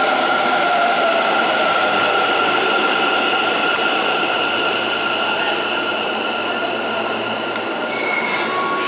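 Electric trains in an underground station: a Hanshin 1000 series train and an arriving Kintetsu train, with a steady high whine over wheel and rail noise. Short high squeals come in about eight seconds in as the Kintetsu train pulls in.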